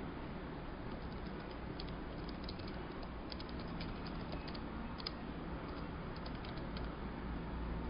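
Computer keyboard keys clicking in short irregular runs as text is typed, over a steady low hum and hiss.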